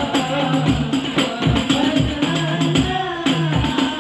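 Music with tambourine jingles over a regular drum beat and a melodic line.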